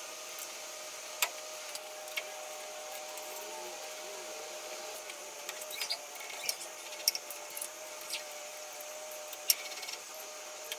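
NEMA 23 stepper motors driving the CNC mill's ballscrews: a faint steady whine with tones that slide up and down in pitch as the axes speed up and slow down, and a few sharp clicks.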